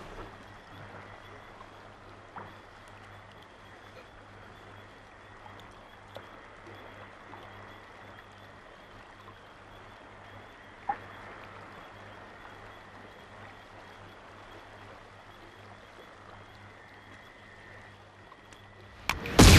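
Faint night-time marsh ambience from a film soundtrack: a steady low hum and hiss with a faint high tone and a couple of small clicks. About a second before the end, a sudden loud blast of battle noise breaks in.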